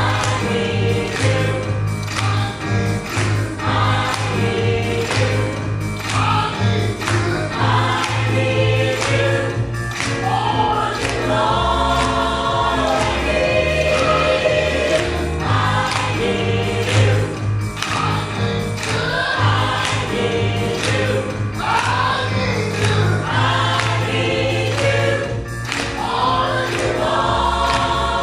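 Gospel choir singing in full voice over instrumental accompaniment, with a strong bass line and a steady beat.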